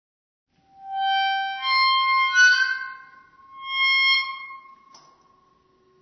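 Squeaky metal hinge of a door or iron gate squealing as it swings: three drawn-out, whistle-like squeals, the middle one the loudest and stepping in pitch. A faint trailing whine and a small click come near the end.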